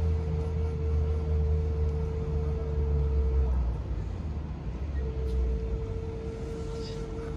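A vertical flute holds one long steady note, breaks off for about a second and a half midway, then takes up the note again. A deep low rumble runs beneath it and is the loudest sound until it fades about two-thirds of the way through.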